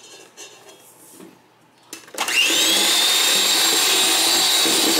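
Electric hand mixer switched on about two seconds in, its whine rising as the motor spins up, then running steadily at speed with its beaters in flour and egg batter.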